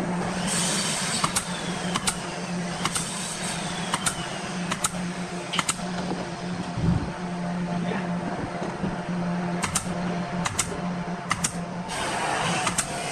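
Pneumatic brad nailer firing single sharp shots into pine boards, about a dozen in all. There is a run of shots in the first few seconds, a pause, and more near the end, over a steady low hum.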